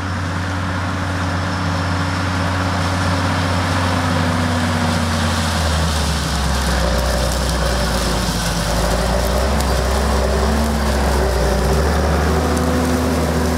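John Deere 7920 tractor's six-cylinder diesel engine running steadily under load as it pulls a tine harrow through stubble past close by. The engine note drops a little about halfway through as the tractor goes past.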